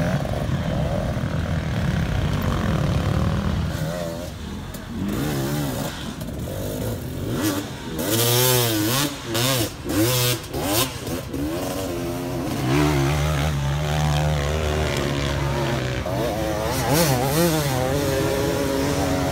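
Enduro dirt bike engines revving hard on a steep climb, the pitch rising and falling with the throttle, in choppy bursts that are loudest about halfway through.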